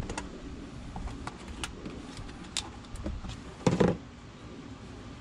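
A plastic quart oil bottle and a shop rag being handled: a few light clicks and taps, then one short dull knock about two-thirds through as the bottle is set down.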